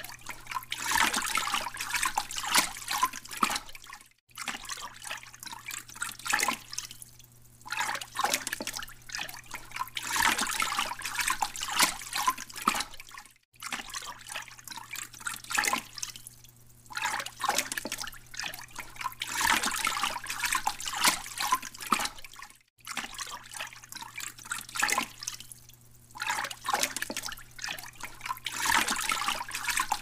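Looped underwater sound effect: bursts of bubbling, rushing water that swell and fade every few seconds over a low steady hum. It cuts out briefly and restarts about every nine seconds.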